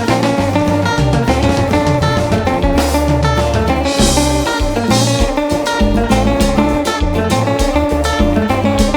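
Live Haitian konpa band playing an instrumental passage, the guitar leading over drum kit and bass with a steady beat.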